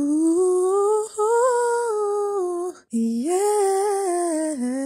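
Wordless female vocal melody sung on 'ooh' in two long phrases, the first gliding upward and the second rising then falling, with a brief break a little under three seconds in.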